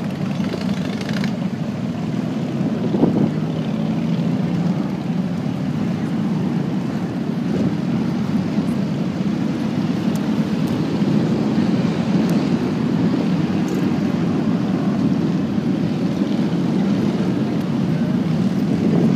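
Steady low rumble of motorcycle engines running in the surrounding rally traffic.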